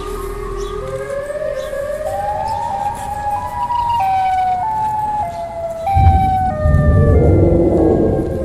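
Siren Head creature's siren call sound effect: a wailing siren tone that climbs in steps over several seconds and then steps back down. A loud low rumble comes in about six seconds in and is the loudest part.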